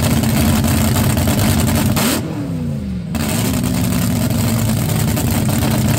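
Car engine running loud and steady. About two seconds in, the revs drop briefly with a falling pitch, then pick up again.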